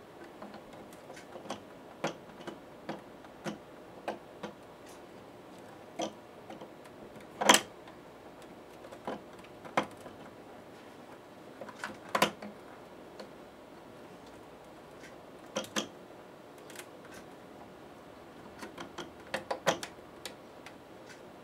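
Scattered plastic clicks and taps as a 3D-printed fan bracket carrying an 80 mm fan is pressed and bent onto the edge of an Arduino controller board. The loudest come about seven and a half and twelve seconds in, with a quick cluster near the end.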